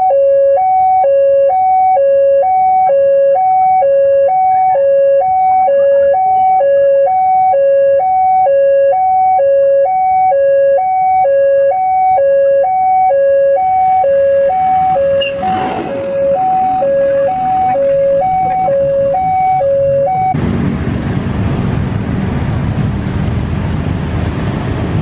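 Railway level-crossing warning alarm sounding, a loud electronic two-tone signal switching back and forth between a low and a higher note while the crossing is closed. Midway a rail vehicle passes with a swelling rumble. About twenty seconds in the alarm stops suddenly and the running engines of the waiting cars and motorbikes take over.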